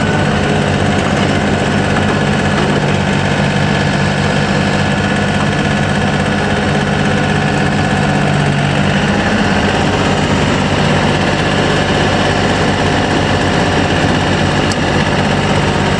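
A John Deere 4410 compact tractor's 34.6 hp Yanmar diesel engine running steadily.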